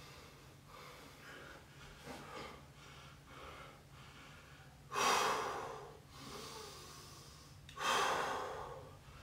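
A man breathing hard from exertion during bodyweight exercise. Two loud, forceful exhalations come about five and eight seconds in, with softer breaths between.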